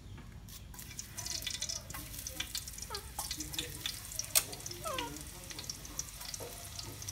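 Quail eggs frying in hot oil in a metal pan, sizzling and crackling, with sharp clicks as more eggs are cracked open; one crack about four seconds in is the loudest sound.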